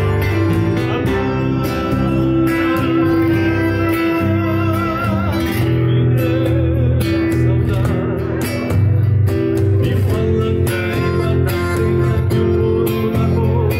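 Live gaúcho folk band playing: piano accordion, nylon-string acoustic guitars and electric bass, with a man singing at the microphone.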